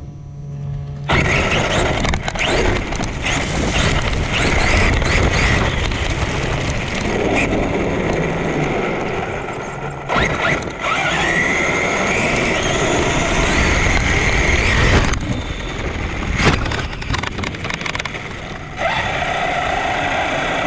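Traxxas Sledge RC truck's brushless electric motor whining up and down as it drives, with drivetrain rattle and tyres bumping over grass, heard from a camera mounted on the truck. The noise starts about a second in, breaks off briefly near ten seconds, eases after about fifteen seconds, and a steady lower hum is left near the end.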